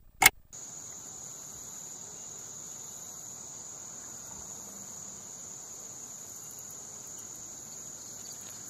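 Clock-ticking sound effect, a last sharp tick or two in the first half second. Then a steady high-pitched chorus of crickets.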